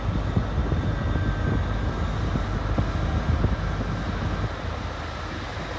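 Diesel multiple unit moving through the station, its underfloor diesel engines giving a steady low rumble with a faint steady whine above it, easing off slightly near the end.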